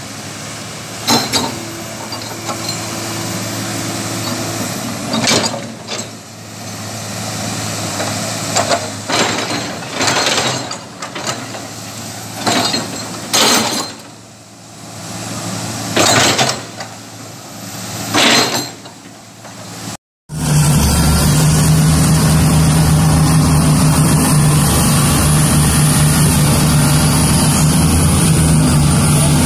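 Hydraulic excavator diesel engine running, with repeated sharp clanks and knocks as the boom and bucket swing. About 20 seconds in it gives way abruptly to the louder, steady drone of a large Komatsu mining excavator's engine.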